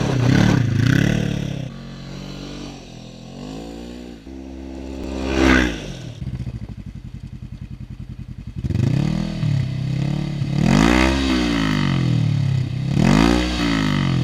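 Polaris RZR 900S side-by-side's twin-cylinder engine revving repeatedly, pitch climbing and falling about five times, with a stretch of low, steady running in the middle.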